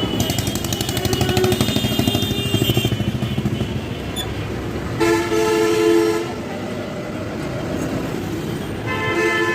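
Street traffic: an engine rattles over a steady low hum for the first few seconds. A vehicle horn sounds for about a second, around five seconds in, and a shorter horn blast follows near the end.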